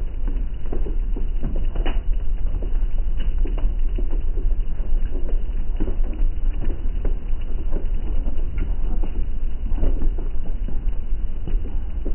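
Heavy rain beating on window glass like hail: a dense, irregular patter of drops striking the pane, over a steady low rumble.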